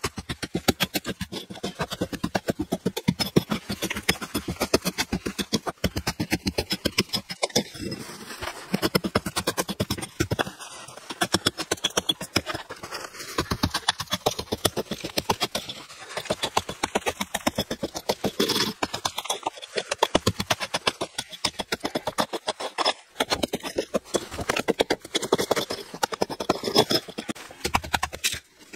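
Steel hammer striking a chisel again and again, several quick blows a second, chipping out concrete. There are a few short pauses between runs of blows.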